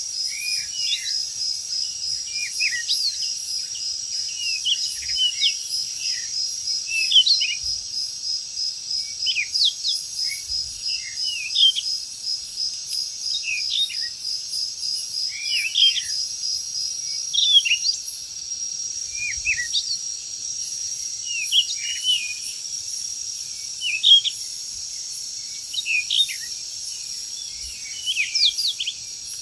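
Forest insects droning and trilling steadily, with many birds giving short, rapid chirps throughout. A pulsing insect trill stops about two-thirds of the way through, while the steadier drone carries on.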